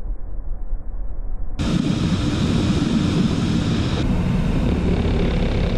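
Jet aircraft in flight heard through an onboard camera: a low rumble of engine and airflow that jumps abruptly, about one and a half seconds in, to a much louder, hissing rush of air and engine noise.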